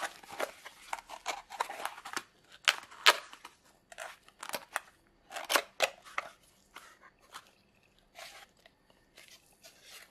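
Small cardboard box being opened by hand: its folded flaps scraping and crackling as they are pulled open, a series of short, irregular rustles that thin out and get quieter after about seven seconds.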